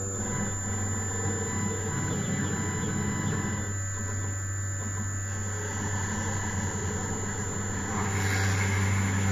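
Homemade six-axis CNC machine tool running, its spindle and stepper motors giving a steady hum with several high whining tones. It grows louder about eight seconds in.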